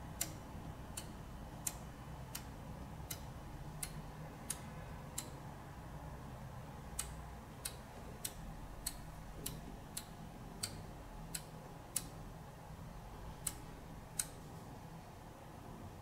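Electromechanical relays on a 32-channel relay controller board clicking as they are switched on one at a time from a phone app: a sharp click about every two-thirds of a second, with a pause of about two seconds in the middle and a longer one near the end.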